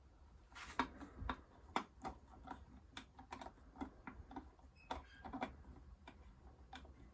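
Faint, irregular clicks and ticks of a screwdriver and metal parts as a Simplex 270 SPO fire alarm pull station is worked open without breaking its glass.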